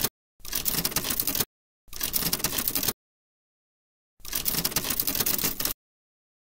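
Typewriter-style typing sound effect used as a text reveal: rapid key clicks in three runs of about a second each, with clean gaps between them.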